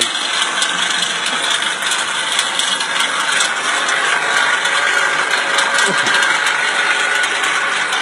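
Manure-removal belt system of a poultry battery cage running: the drive sprocket, chain and rollers pulling the belt make a steady mechanical clatter of rapid ticks.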